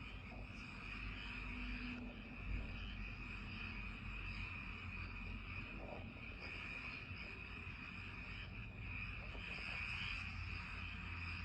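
Night-time countryside chorus of calling frogs and insects: a steady, unbroken high-pitched trilling that swells slightly near the end, over faint low background noise.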